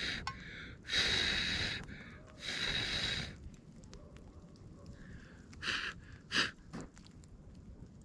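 A person blowing on a wood campfire's embers to fan the flames: three long breaths of about a second each, then two short puffs past the middle.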